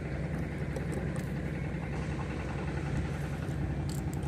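A steady low mechanical drone like an engine running, with a few faint clicks near the end.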